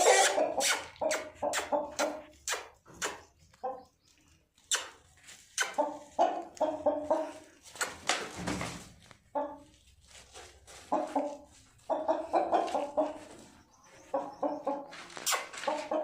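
Parrot-beak Aseel chickens clucking: runs of short, quick calls several to the second, broken by a few pauses, with short sharp scratchy noises in between.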